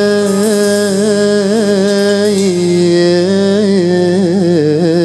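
A man singing a long melismatic phrase in Egyptian Arabic pop style, drawn out on a held vowel with small ornamental turns. The line steps down in pitch about halfway through and breaks into quicker trills near the end.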